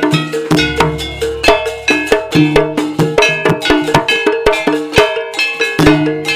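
Instrumental passage of a Javanese jaranan gamelan ensemble: fast, ringing metal percussion strikes over steady tuned notes, with a deep gong stroke about half a second in.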